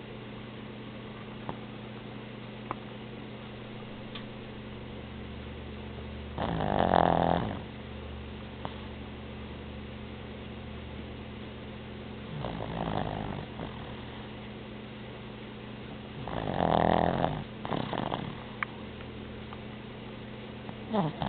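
A sleeping Boston terrier snoring, a short-muzzled breed, with separate snores a few seconds apart; the loudest come about seven and seventeen seconds in, one fainter near thirteen seconds. A steady low hum runs underneath.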